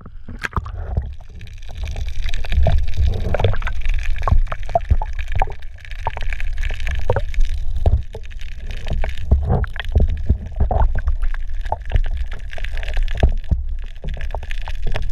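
Water sloshing and gurgling around a camera held underwater, heard through its waterproof housing: a muffled low rumble with many small clicks and knocks.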